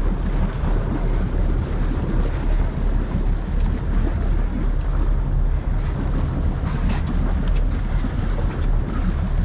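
Wind buffeting the microphone over the steady low hum of the boat, with water sloshing and a couple of short splashes from a tarpon thrashing at the boat side about seven seconds in.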